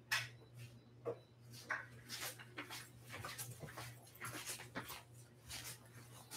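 A quick, irregular patter of light clicks and taps: a labradoodle puppy's claws on a hardwood floor, mixed with footsteps.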